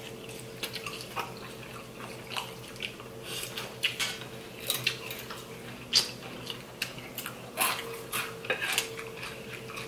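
Forks tapping and scraping on plates, mixed with close chewing and mouth sounds of two people eating salad and pasta: many short, irregular clicks and crunches.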